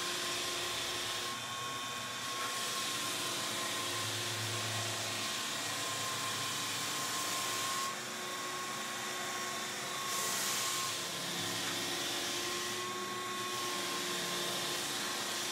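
Walk-behind belt floor sander running with a 60-grit zirconia belt, cutting through a two-pack water-based floor coating on timber boards. It makes a steady whine with a few held tones, dipping briefly a couple of times as the machine is worked along the strip.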